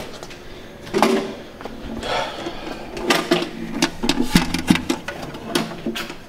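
A string of irregular clicks, knocks and rustling, the kind of clatter made by handling and moving things about, with a sharp knock about a second in.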